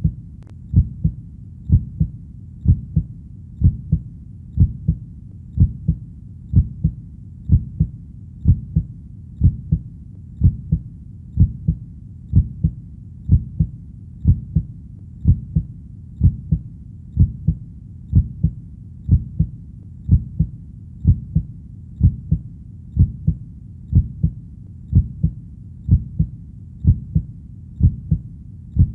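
Human heartbeat: a steady double lub-dub thump, low and dull, about once a second, over a faint low rumble between beats.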